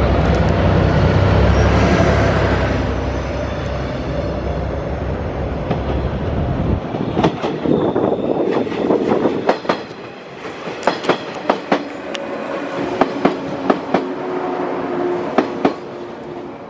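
A DE10 diesel-hydraulic locomotive passes close by, its diesel engine rumbling loud and low. About seven seconds in the rumble falls away and wheels clack over rail joints, often in pairs, as train cars roll past.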